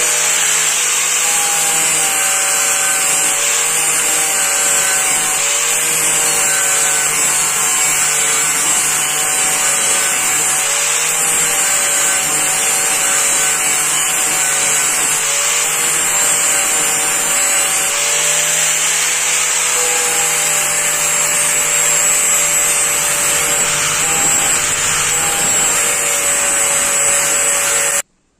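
Electric angle grinder grinding a steel knife blank, with a steady high whine from the disc on the metal. The motor's tone wavers and dips slightly as the disc is pressed into the work, then the grinder cuts off suddenly near the end.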